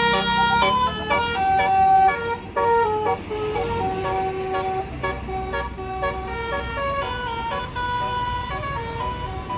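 Tour bus's basuri (telolet) musical horn playing a quick melody of short stepped notes, loudest in the first three seconds and carrying on softer, over a low rumble.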